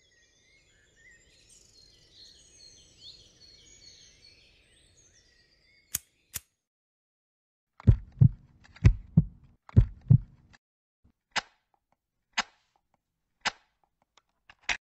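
Faint birdsong for the first few seconds, then two sharp clicks. Next come three heartbeats, each a pair of low thumps about a second apart, and then single sharp clicks about once a second.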